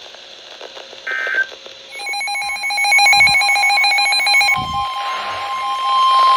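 Emergency Alert System tones from a weather radio. About two seconds in come the buzzing digital header bursts of a new alert, and about four and a half seconds in a steady high alert tone starts; together they announce a new severe thunderstorm warning.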